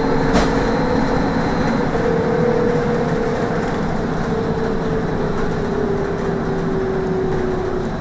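Trolleybus ride heard from inside: the electric traction drive whines at one pitch that slowly sinks towards the end, over a steady rumble of road and tyre noise. A single sharp click comes about half a second in.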